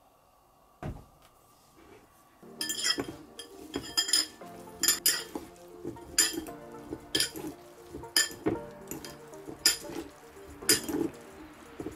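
Two metal forks tossing sliced mushrooms in a glass mixing bowl, clinking sharply against the glass about once a second.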